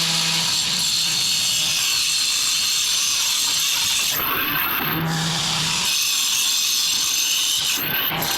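Power disc cutter grinding steadily through a paving flagstone. The cutting note shifts briefly twice, about halfway through and near the end.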